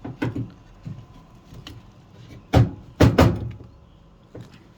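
Hard parts knocking and clacking as the washing machine's inlet valve is handled and its connections plugged back: a few light clicks near the start, then two loud knocks about two and a half and three seconds in.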